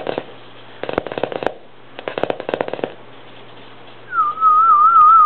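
A person whistling one warbling note that starts a little high, drops, then wavers up and down for about a second and a half near the end. Before it come two short runs of rapid tapping, about a second in and again about two seconds in.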